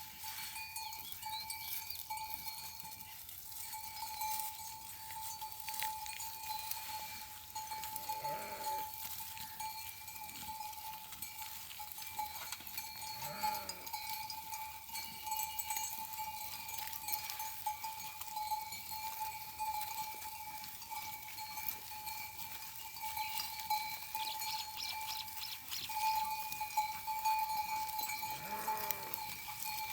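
Livestock neck bells ringing steadily, with an animal bleating three times, well spaced through the stretch.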